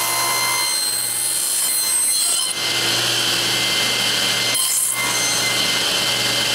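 Table saw running and cutting a notch into a small wood block, a steady motor hum under the whine and rasp of the blade in the wood. The sound dips briefly twice.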